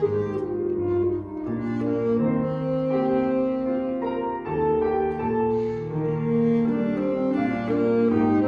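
Alto saxophone and Steinway grand piano playing a classical duet, the saxophone holding long notes that change every second or so over the piano accompaniment.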